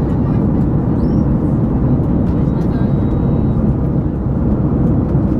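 Steady cabin noise of a Boeing 737 MAX 8 airliner in flight: the rush of airflow and its CFM LEAP-1B engines, low and constant.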